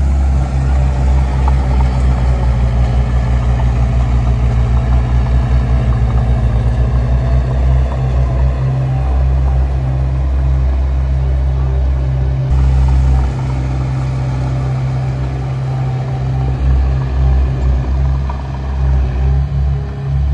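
Heavy diesel earthmoving machinery running: a deep engine throb with a fast, even pulse in the first half. The level dips briefly about 13 seconds in, then rises and falls as the engine works.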